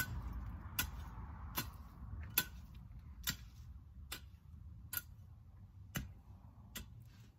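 Long-handled garden hoe chopping into the soil of a vegetable bed: a sharp strike about once a second, in a steady working rhythm.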